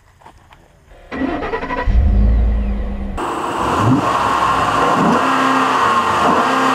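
Ford F-150 pickup truck's engine running and revving as the truck pulls away to drag the pistol. After a quiet first second it comes in suddenly, with a deep rumble about two seconds in, then a louder, steady run as it gathers speed.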